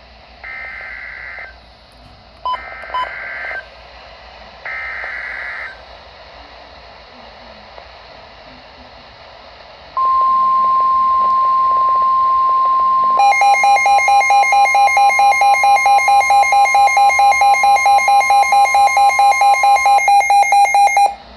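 NOAA Weather Radio emergency alert: three short bursts of the raspy SAME digital header, then a few seconds later the steady 1050 Hz weather radio warning tone. A few seconds after the tone starts, the EAS decoder joins with a rapid electronic beeping of about five beeps a second. Both stop just before the end. Together they signal a newly issued severe thunderstorm warning.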